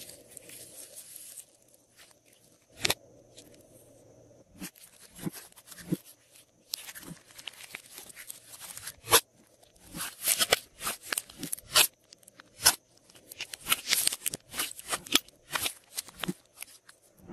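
Glossy slime squished and kneaded by hand: irregular sticky clicks, pops and crackles, coming thickest in the second half.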